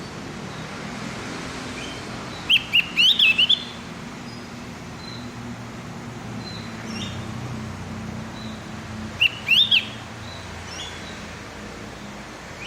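Opior jawa (Javan grey-throated white-eye) singing: two short bursts of quick chirping notes, about a second each and some six seconds apart, with faint thin calls in between. A steady low hum runs underneath.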